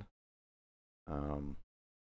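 Dead silence from a noise-gated voice microphone, broken about a second in by a single half-second wordless vocal sound from a man's voice, a short hum or filler.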